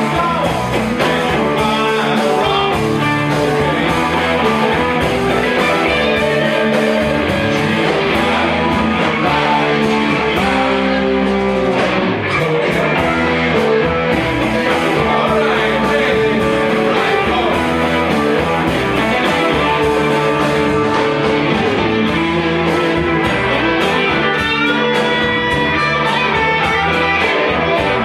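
Live rock band jamming: several electric guitars, a drum kit and a keyboard playing together, loud and steady.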